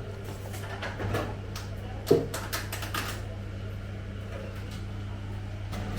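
Scattered light clicks and knocks, with one louder knock about two seconds in, over a steady low hum.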